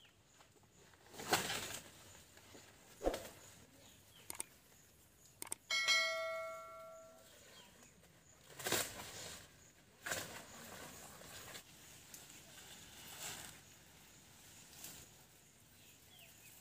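Large giant-taro leaves and stalks rustling and snapping as they are picked by hand, in about seven separate bursts. About six seconds in, a single bell-like ringing tone sounds and fades over about a second and a half.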